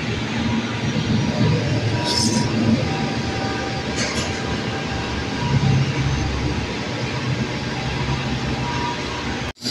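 Steady low rumbling restaurant background noise. Two brief hissing sounds come about two and four seconds in, and the sound cuts out for an instant near the end.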